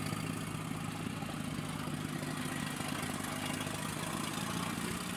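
Engine of a small farm truck loaded with rice sacks, running steadily at low revs.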